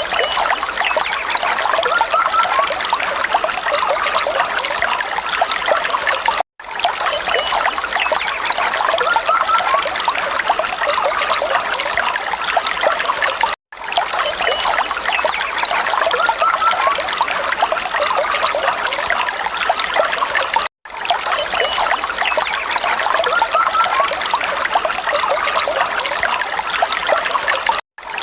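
Falling water trickling and splashing steadily. It is a short recording of about seven seconds played over and over, each repeat broken by a brief gap of silence.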